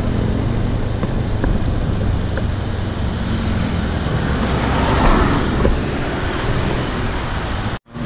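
Riding noise from a Yamaha NMAX scooter as it slows down: wind on the camera microphone with engine and road noise underneath. The sound drops out abruptly for an instant near the end.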